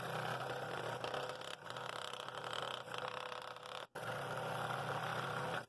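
Scroll saw running, its blade cutting a bevelled ring out of a wooden bowl blank with the table tilted. The sound breaks off briefly about four seconds in, then resumes.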